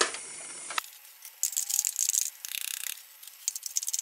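Short rattling and scraping bursts starting a little over a second in: ground spices being knocked and scraped out of an electric coffee grinder's metal cup into a steel pot.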